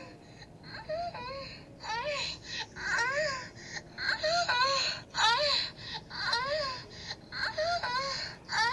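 A phone playing a dirty prank ringtone: a recorded voice moaning in short cries that rise and fall in pitch, about two a second.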